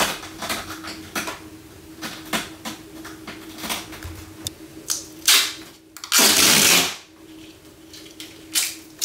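Duct tape being ripped off the roll in one long, loud pull about six seconds in, after a shorter tear about five seconds in, among small clicks and rustles.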